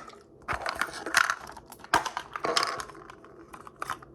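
Plastic toy packaging being handled and unwrapped: crinkling and sharp small clicks of Mini Brands capsule wrapping and miniatures, busiest in the first three seconds and then quieter.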